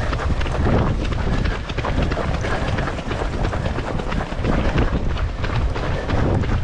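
Wind noise on the microphone of a camera carried at running pace, with the patter of many runners' footsteps on a tarmac path.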